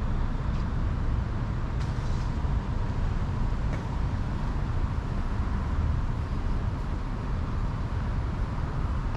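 Steady city road traffic: a continuous low rumble of passing vehicles, with a faint steady hum and a few light ticks.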